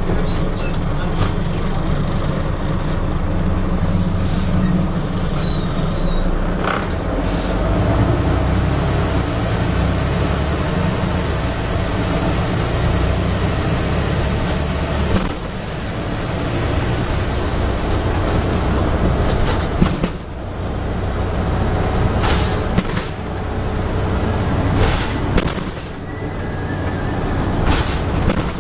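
Interior sound of a Scania N94UB double-decker bus under way: its diesel engine drones steadily, with the level dropping about halfway through as the engine eases off. Scattered knocks and rattles from the bus body and fittings come through, more of them in the second half.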